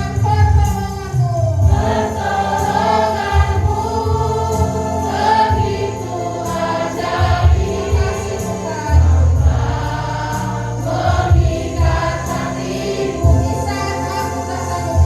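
A choir singing a Christian worship song with instrumental accompaniment and a sustained bass line.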